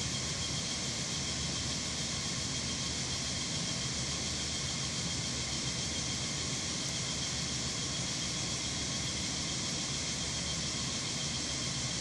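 Steady even hiss with a faint low hum underneath: the constant machine background of an aquarium hall's pumps and air handling, unchanging throughout.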